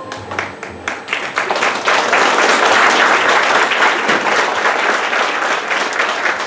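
Audience applauding, the clapping swelling within the first two seconds and thinning out near the end.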